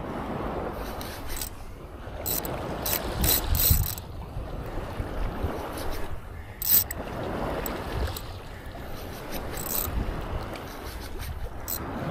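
Surf washing onto the beach in slow swells every few seconds, with scattered sharp clicks and knocks over it.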